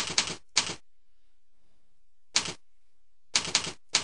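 Computer keyboard typing in short spurts: a quick run of keystrokes at the start, a single key press about two and a half seconds in, and another quick run near the end.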